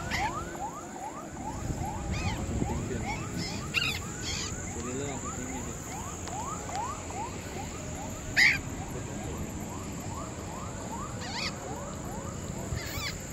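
Brief harsh calls of Patagonian conures in flight, a handful spread through, the loudest about eight seconds in. Under them runs a steady train of short rising chirps, about three a second.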